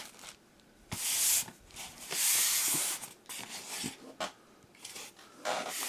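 Clear plastic bag crinkling and rustling as it is handled, in several separate bursts, the longest between about two and three seconds in.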